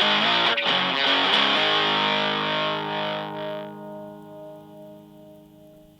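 Fender Stratocaster played through a Full Analog Distortion Bender fuzz pedal into a Fender Blues Junior amp. A few quick distorted notes are followed by a chord left ringing, which dies away over the last few seconds.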